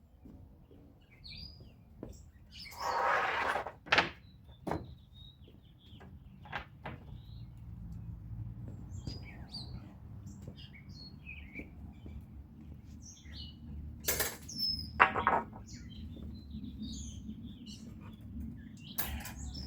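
Birds chirping in the background, with scattered sharp knocks and short scraping noises of things being handled. A low steady rumble builds up from about six seconds in.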